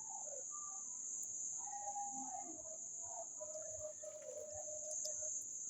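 Insects trilling, a steady high-pitched drone, with faint wavering tones lower down about two seconds in and again from about three to five seconds.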